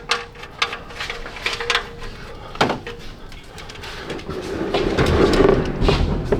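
Workshop handling noises: scattered clicks and knocks of tools and parts being handled, then a louder stretch of rubbing and clatter about four seconds in, as the area under the car is cleaned up.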